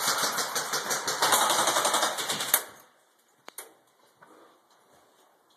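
Airsoft gun firing a long full-auto burst, a fast rattle of shots that stops abruptly about two and a half seconds in. One or two single sharp clicks follow about a second later.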